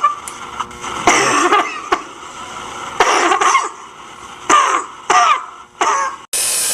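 Recorded human coughing played by an anti-smoking poster that coughs: about five short coughing fits, spaced a second or so apart. It mimics what second-hand smokers go through.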